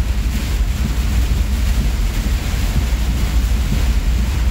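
Heavy rain and high wind on a semi truck's cab while it drives: a loud, steady deep rumble with an even hiss of rain over it.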